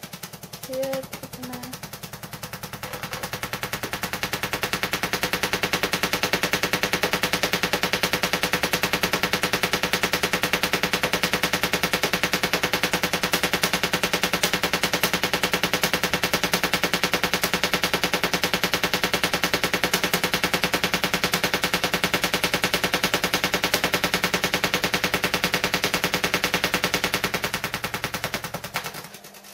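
Vacuum tube Tesla coil with a GU-81 tube in staccato mode, its spark discharges making a fast, even, rattling buzz. The buzz builds up over the first few seconds, holds steady, and dies away near the end.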